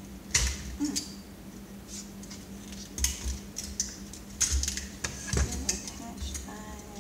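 Irregular clicks, scrapes and light clatter of hard plastic and metal parts being worked loose by hand as a deflection yoke is pulled off a CRT monitor's tube neck. A steady low hum runs underneath.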